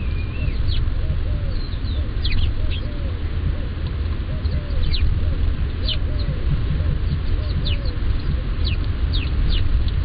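Wild birds calling: many short, sharp high notes that slide steeply downward, scattered irregularly, with a lower arching call repeated about twice a second that stops near the end. A steady low rumble runs underneath.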